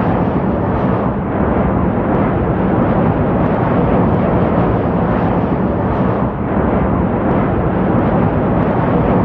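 Steady loud rumbling roar of jet aircraft noise, with no clear pitch, dipping briefly about six seconds in.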